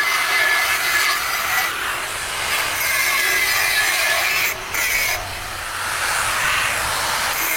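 Power tool grinding into the aluminium alloy wheel, cutting a V-groove along the crack to prepare it for welding; a steady grinding with a motor whine, easing off briefly a little past halfway.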